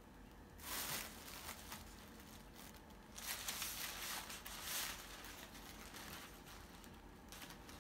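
Plastic carrier bag and sandwich paper wrapper crinkling as they are handled and the sandwich is unwrapped, in bursts about a second in and again from about three to five seconds in.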